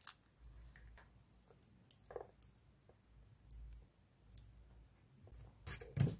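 Scattered small clicks and taps of a small plastic electronics case, its battery and wires being handled and tweezers working inside it, with a louder cluster of clicks near the end.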